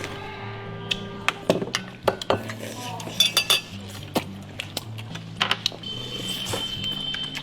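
Kitchen utensils clinking and knocking against dishes and pots: an irregular string of sharp clinks, some with a short ring, busiest about three seconds in. Background music with held notes plays underneath.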